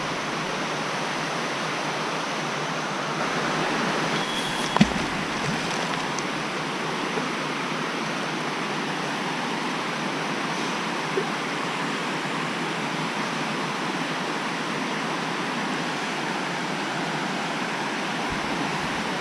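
Water rushing steadily down a drainage culvert, an even continuous hiss, with a single sharp knock about five seconds in. It cuts off abruptly at the end.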